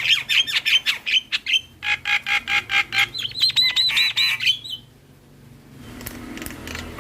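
Javan myna (jalak kebo) singing: rapid runs of short repeated notes, about five a second, in several phrases that stop about four and a half seconds in, followed by softer chatter near the end.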